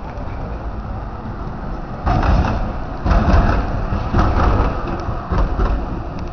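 Melbourne B2-class articulated electric tram passing close by, a steady low rumble with a run of louder bursts of rumble and clatter from about two seconds in that ease off toward the end.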